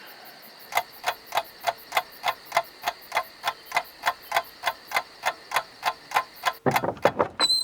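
Steady, even ticking, about three clicks a second, like a relay or clock. Near the end it gives way to a rustle, a few knocks and a short high squeal.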